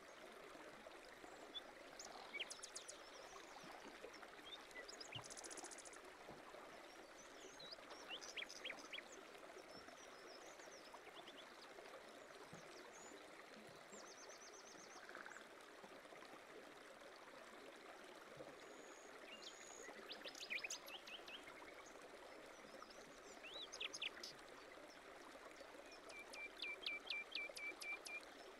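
Faint running water, like a stream, with birds chirping and trilling now and then and a quick run of repeated notes near the end.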